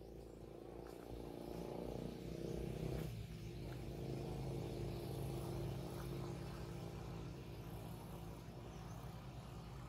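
A motor vehicle's engine running steadily, its low hum growing louder over the first few seconds and then holding.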